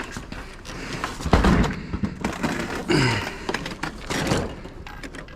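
Thumps and clunks as a stainless-steel dishwasher is handled and lifted. The heaviest thump comes about a second in, with more knocks near three and four seconds.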